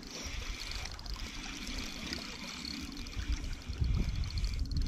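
Spinning reel being cranked to bring in a hooked fish, its gears giving a fine rapid whir, over low wind buffeting on the microphone that grows louder in the last couple of seconds.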